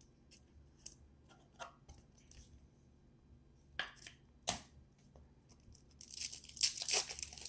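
Trading-card pack wrapper being torn open and crinkled, loudest from about six seconds in. Before it come a few faint ticks and two sharper crackles as the pack is handled.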